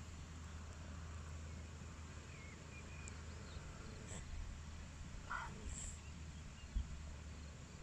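Faint outdoor ambience: a steady low hum with a few faint chirps, and a short animal call about five seconds in.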